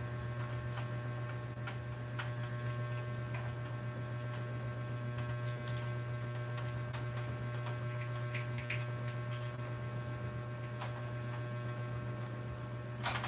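A steady low electrical hum, with a few faint clicks and taps as a ring light is fitted and adjusted on its tripod stand.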